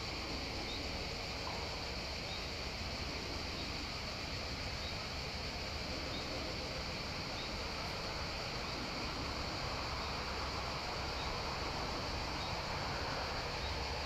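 Steady outdoor background hiss, with a faint short high peep repeating about once every second or so.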